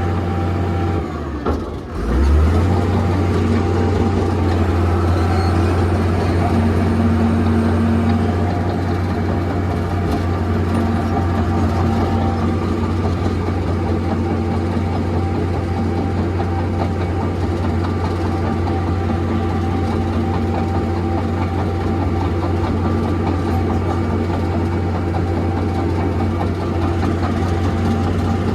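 Komatsu D41P-6 bulldozer's diesel engine running with a steady low hum. About two seconds in it briefly dips and then picks up again.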